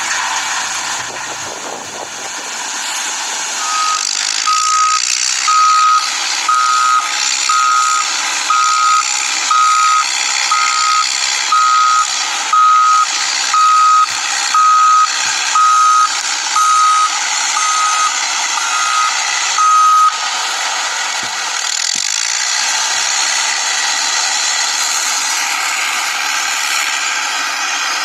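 Toy remote-control excavator's electronic warning beeper sounding about once a second for some sixteen seconds, stopping about twenty seconds in, over the steady whir of its small electric motors and gears as it works the sand.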